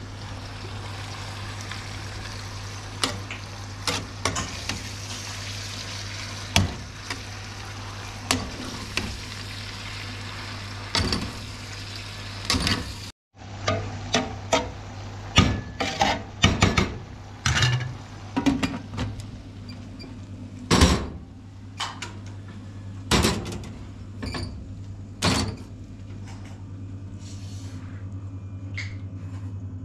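Food sizzling in a cooking pot or pan, with repeated knocks and scrapes of a utensil stirring it. The sizzle thins out after a brief break about 13 seconds in, and the knocks carry on.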